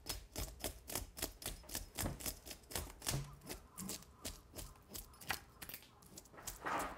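A scale scraper rasping over a sea bream's skin in quick repeated strokes, about five a second, as the scales come off.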